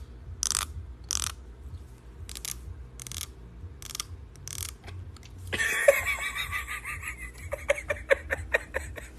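Plastic comb bristles scratched by a fingernail in a series of short raspy strokes, about one and a half a second, followed about halfway through by a louder throaty gagging with rapid clicks: a cat retching in reaction to the comb sound.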